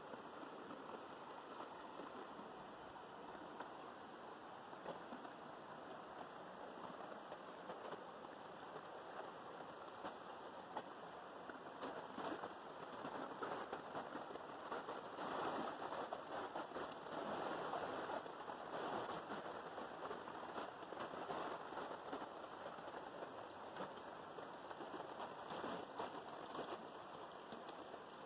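River water flowing and splashing, a steady rushing hiss that grows somewhat louder about halfway through.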